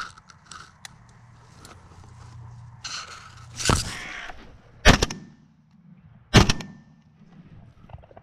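Browning A5 semi-automatic shotgun fired three times in quick succession, the shots a little over a second apart. A short rustle of movement comes just before the first shot.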